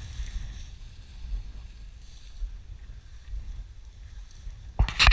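Wind rumbling on the microphone, then a sudden loud burst of rustling noise near the end.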